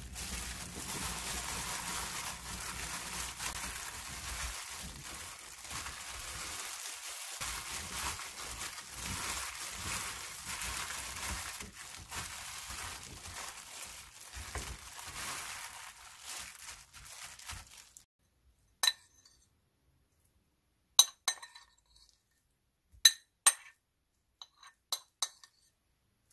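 Plastic disposable gloves crinkling and cubed Korean radish rustling in a metal bowl as the cubes are rubbed hard with red pepper flakes. About 18 seconds in the rubbing stops, and a spoon clinks sharply against the bowl and dishes several times as seasonings are spooned in.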